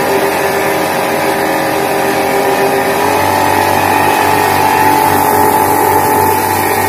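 Homemade paint-can blower driven by a water-pump electric motor, running with a steady whir and hum. Its tone changes about three seconds in as its speed-control knob is turned.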